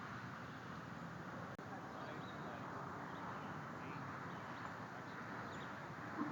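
Steady outdoor background hiss with faint, short high bird chirps scattered through it, and a brief low call right at the end.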